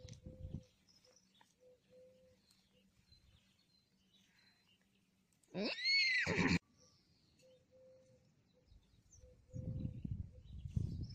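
A horse whinnies once, for about a second, near the middle; the pitch rises and then falls. Low rustling noise follows near the end.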